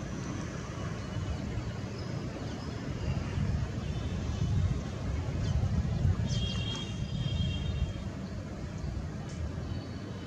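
Steady low rumble of distant traffic, with a few brief high bird chirps about six seconds in.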